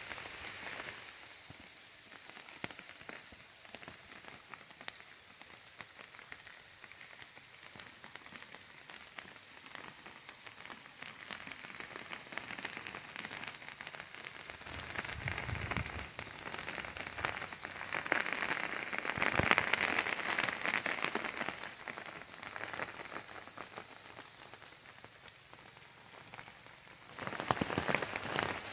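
Rain pattering on the leaves and fruit of apple trees, a dense hiss of drops that swells louder for a few seconds past the middle.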